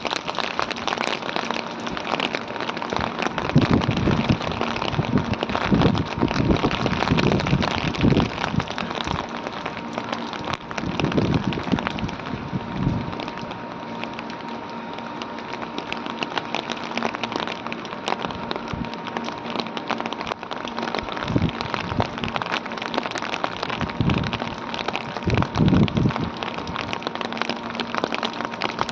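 Heavy rain falling and pattering on hard surfaces, a dense, continuous hiss of drops with low rumbling swells several times, and a faint steady hum underneath.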